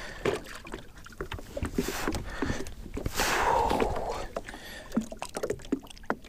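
Small splashes and water lapping as a hand lowers a smallmouth bass into lake water at the side of a boat, with scattered small ticks and knocks. A longer rush of noise comes about three seconds in.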